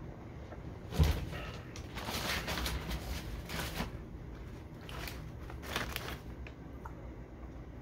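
A single thump about a second in, then a brown paper takeout bag rustling and crinkling as it is handled.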